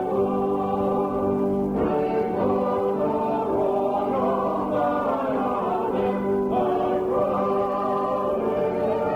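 A choir or congregation singing a hymn in parts, with long held notes and a few chord changes.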